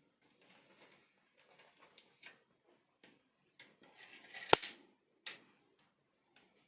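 Scattered small metallic clicks from the Norica Dream Hunter air rifle's trigger and cocking mechanism being worked, with a brief rush of noise and then one sharp, loud snap about four and a half seconds in.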